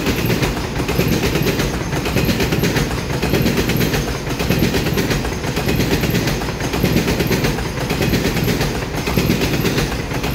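A twelve-car EMU3000 electric multiple unit rolling past: a loud, steady rumble of steel wheels on rail, threaded with a fast run of fine clicks as the cars go by.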